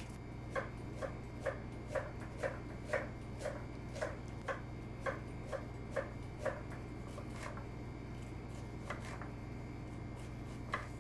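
Chef's knife chopping a white onion on a wooden cutting board: steady knocks about two a second for the first six seconds or so, then a few scattered cuts later.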